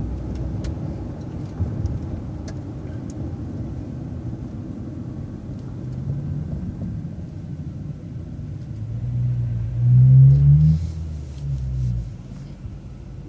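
City bus engine running with a steady low rumble while waiting at a light, swelling into a loud rising engine note about nine seconds in that fades by about twelve seconds.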